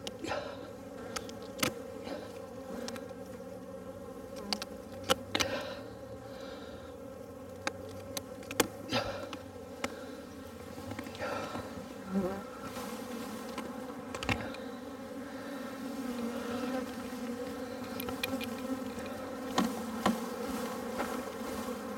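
A mass of honeybees from a package buzzing in a steady hum as they are installed into a hive box. Several sharp knocks and taps come through as the plastic package cage is handled and shaken over the box.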